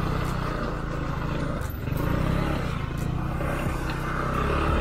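Motor scooter engine held at steady throttle, a low drone with a hiss above it, as the bike is worked up a steep climb with riders pushing.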